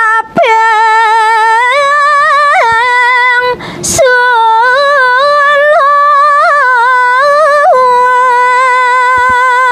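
A woman singing unaccompanied in Balinese pupuh Sinom (sekar alit) style: long held notes with ornamented, wavering pitch. There is a short breath just after the start and another at about four seconds.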